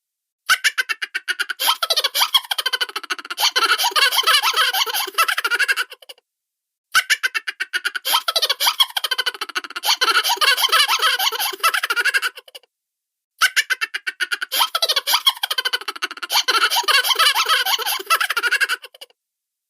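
Cartoon laughter: high, rapid, stuttering chuckles in three runs of about six seconds each, with brief silent gaps between them.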